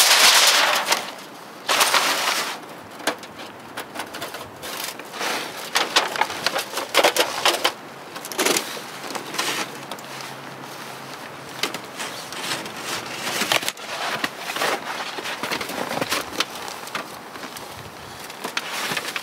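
Camp gear being handled: two long rustling scrapes in the first few seconds, then scattered small knocks, clicks and rustles as tent fabric and poles are moved about.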